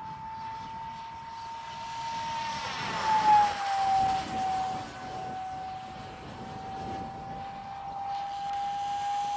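Small RC jet model's 50 mm electric ducted fan in flight, a steady high whine. About three seconds in it swells and drops in pitch as the model passes close by.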